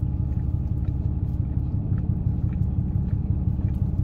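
Steady low rumble and hum of a car's engine idling, heard inside the closed cabin of the parked car, with a few faint clicks.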